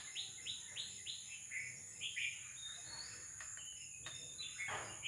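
Short squirts and sputters of 3M polishing compound squeezed in dabs from a plastic squeeze bottle onto a foam polishing pad, several quick ones in the first second and a half and a few more later. A steady high insect drone runs underneath.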